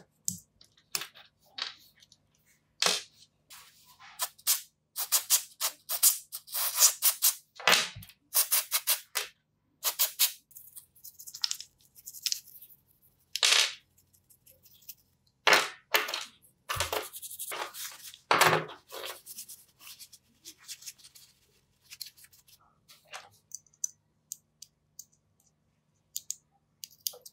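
Irregular clicks, scrapes and light taps of small plastic and brass parts being pried and handled as a power-tool trigger switch is taken apart with a metal pick on a wooden bench, with dense bursts of scratching.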